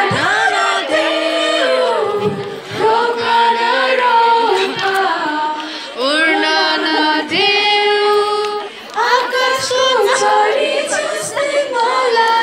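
A young woman singing a slow song into a microphone, with long held notes.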